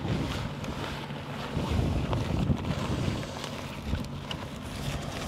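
Wind buffeting the microphone: a steady, gusty low rumble.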